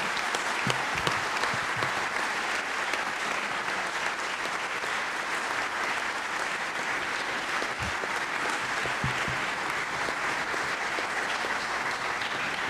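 Large seated audience applauding steadily, the clapping of many hands going on without a break.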